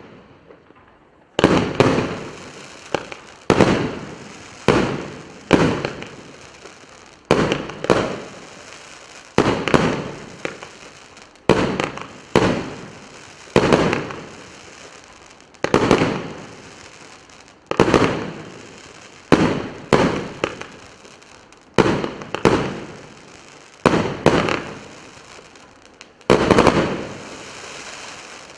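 A 25-shot, 1-inch-calibre consumer firework cake firing shot after shot, at irregular gaps of about a second or less. Each sharp report is followed by a hissing, crackling tail that dies away. The final shot comes near the end and fades out.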